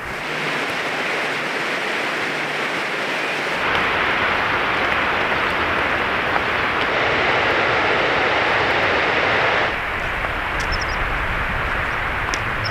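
Outdoor ambience: a steady rushing noise that shifts abruptly twice as the shots change, with two faint high chirps near the end.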